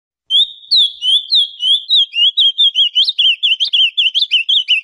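Male ultramarine grosbeak (azulão) singing one long phrase of quick whistled notes, starting a moment in; the notes come faster and closer together through the phrase.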